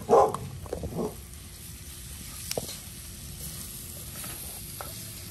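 Chopped vegetables in a roux sizzling in a cast iron Dutch oven over a wood fire, with a steady low hiss as a wooden spoon stirs the pot. A few brief louder sounds come in the first second.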